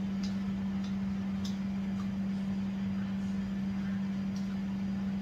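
A steady low hum, unchanged throughout, with a few faint soft clicks of someone eating by hand: chewing and lip smacks.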